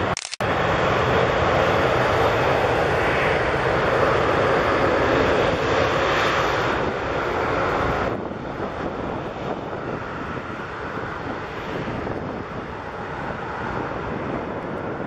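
Airbus A330-300 with Rolls-Royce Trent 700 engines landing: a loud, steady jet engine rumble as it passes low on final approach. About eight seconds in, the sound drops abruptly to a quieter, even rumble as the aircraft touches down.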